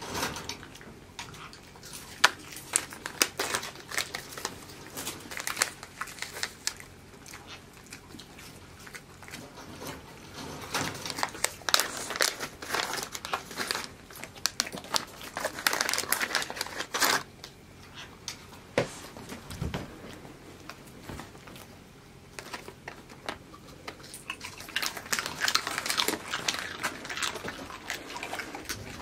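Crinkling and rustling of a plastic treat pouch being handled and opened, coming in bursts with short quieter gaps.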